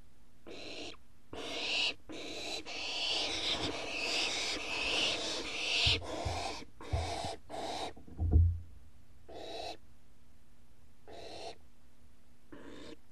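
Barn owl owlets giving rasping, hissing food-begging calls: short hisses about once a second, with a longer unbroken stretch in the first half. Several low thumps come in the middle, the loudest about eight seconds in.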